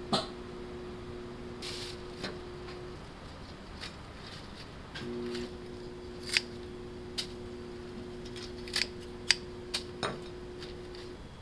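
A ceramic plate set down on a countertop with a sharp clack, then kitchen tongs clicking shut and tapping the plate several times as lettuce leaves are laid on it. A low steady hum runs underneath.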